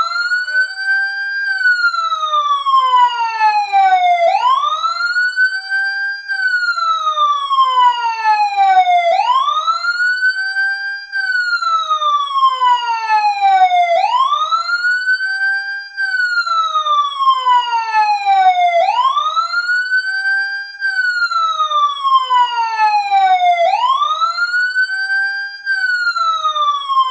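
Fire truck siren wailing as a countdown timer's time-up alarm. Each cycle rises quickly in pitch, holds briefly, then falls slowly, and repeats about every five seconds.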